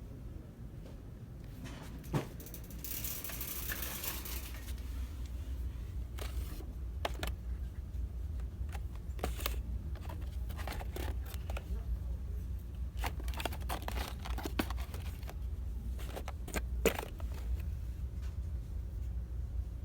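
Packaged store merchandise being handled: scattered clicks, taps and plastic crinkling, with a brief rustle about three seconds in, over a steady low hum.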